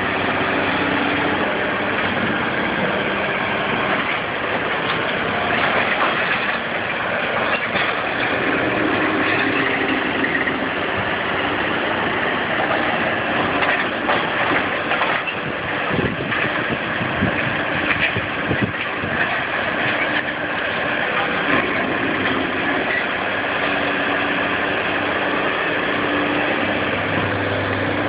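Volvo crawler excavator's diesel engine running steadily, with scattered knocks and crunches through the middle stretch as its demolition shear works through concrete rubble.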